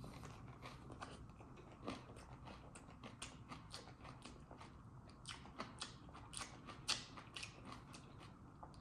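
Faint close-up chewing of pork belly adobo: irregular wet mouth clicks and smacks, several a second, a few louder ones a little past the middle.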